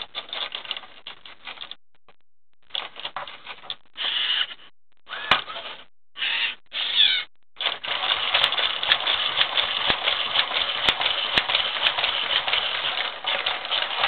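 WowWee Robosapien V1 toy robot's small gear motors whirring and its plastic arms clattering as it swings them. The sound comes in several short bursts, then runs without a break for the last six seconds or so.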